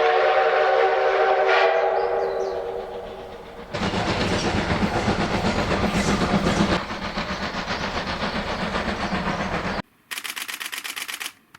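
JNR Class D51 steam locomotive D51 200 blowing a long steam-whistle blast, several tones at once, fading away over the first few seconds. Then the locomotive's loud, pulsing running sound. It cuts off abruptly near the end, followed by a brief run of rapid high ticking.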